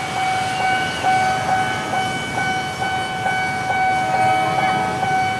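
Railway level-crossing warning alarm sounding steadily in several held tones with a faint regular pulse, over the low rumble of approaching trains.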